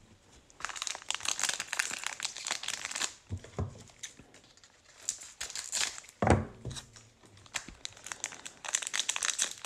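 Foil wrapper of a Panini Mosaic NFL trading-card pack crinkling in irregular bursts as it is handled and torn open. One short, louder low sound comes about six seconds in.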